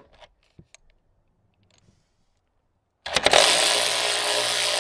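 ACDelco 3/8-inch brushed cordless ratchet motor starting up about three seconds in and running steadily, spinning a 13 mm socket on a car door hinge bolt. A few light clicks of the socket being handled come before it.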